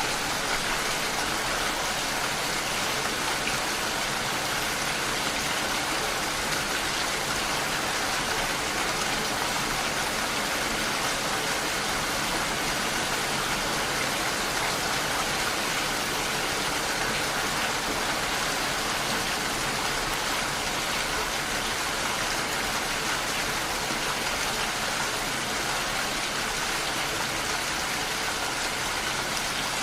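Steady rain falling, a dense even hiss of drops on surfaces.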